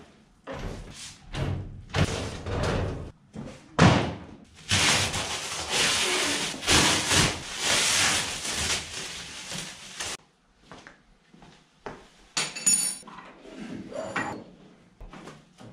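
Plastic wrapping being pulled and crumpled off a sheet-metal hydraulic control cabinet, a long dense crackling rustle in the middle. Knocks and thumps come first as the cabinet is tilted on its plywood pallet, and scattered clicks and a brief metallic clink follow near the end.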